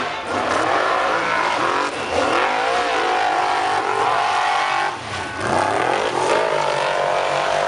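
Off-road race buggy engines revving hard in a hill climb, pitch rising and falling with the throttle. The sound breaks off briefly about two seconds and five seconds in.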